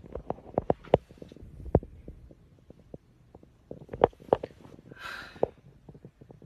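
Handling noise from a phone being moved about while it films: a string of irregular soft clicks and knocks, with a short hiss about five seconds in.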